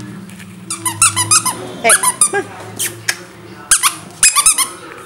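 Young puppies squealing and yipping in short, high-pitched bursts, several clusters of quick squeaks.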